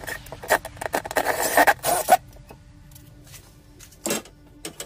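Cordless drill/driver driving a screw into an angled aluminum bracket: a rough grinding burst starting about half a second in and lasting under two seconds, then a shorter burst near the end.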